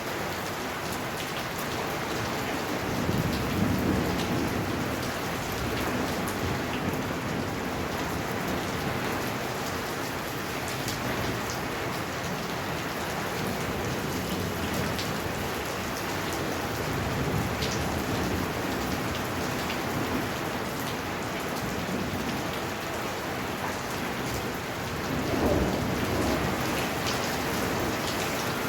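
Heavy rain pouring steadily onto surfaces, with a low rumble of thunder swelling about three seconds in and again near the end.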